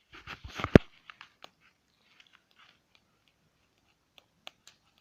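Dry leaves and twigs crackling and snapping, with two heavy thumps in the first second and then scattered sharp clicks.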